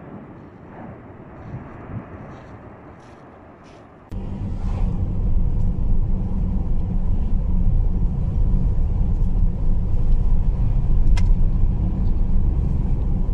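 A quiet outdoor rumble under a distant volcanic eruption. About four seconds in it cuts abruptly to a much louder, steady low drone of a car driving along a road.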